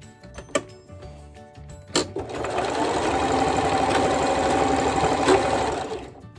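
Domestic electric sewing machine running in one steady burst of stitching for about four seconds, starting about two seconds in and stopping near the end. A few sharp clicks come before it.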